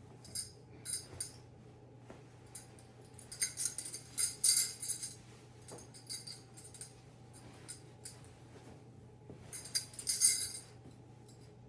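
Metal bangles on a wrist jingling and clinking together in short bursts as the arm moves, loudest about three and a half to five seconds in and again around ten seconds.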